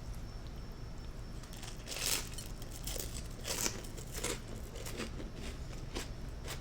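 Close-miked chewing of toasted crostini: a series of crisp crunches, the loudest about two seconds in and again about three and a half seconds in.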